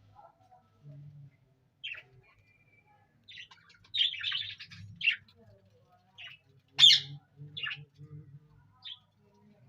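Budgerigars chirping in short, scattered calls, the sharpest about seven seconds in.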